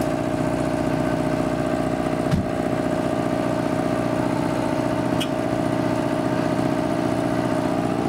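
A vehicle engine running steadily at an even pitch, with a short knock about two and a half seconds in and a faint click a little after five seconds.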